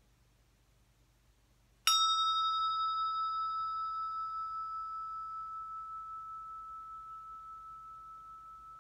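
Brass Tibetan hand bell struck once with a wooden striker about two seconds in, then ringing with one clear, sustained tone that slowly fades, its higher overtones dying away first and its loudness wavering gently as it decays.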